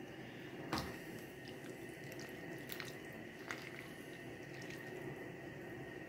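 Pot of lecho (peppers, onion and tomato sauce) bubbling on a gas burner that has been turned up to bring it back to the boil after the vinegar went in. Scattered soft pops and small clicks over a steady low hiss, with one sharper click about a second in.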